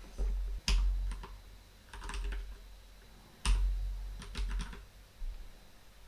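Typing on a computer keyboard in short bursts of keystrokes, with brief pauses between them.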